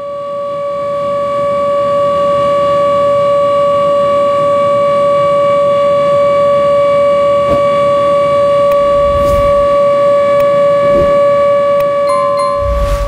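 A ship's horn sounding one long, loud blast at a single steady pitch.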